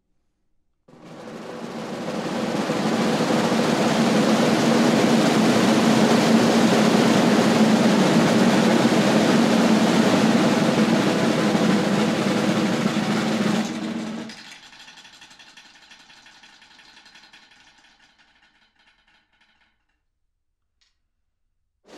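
Eight snare drums swell from silence about a second in into a loud, dense roll, hold it steadily, then cut back suddenly after about thirteen seconds to a much quieter buzzing that fades away over about five seconds.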